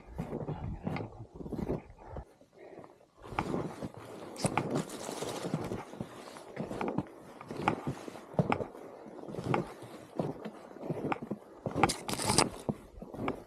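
Snowshoe footsteps crunching and scraping in deep snow, an uneven step about once or twice a second, with a couple of brief swishes.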